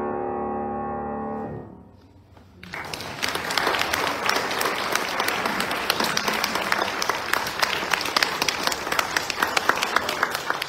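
A grand piano's final chord ringing and dying away, then after a short pause an audience applauding, steady clapping to the end.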